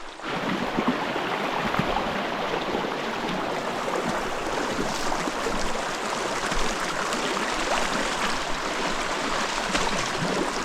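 Mountain stream water running steadily over rocks. The sound jumps louder just after the start and then holds even.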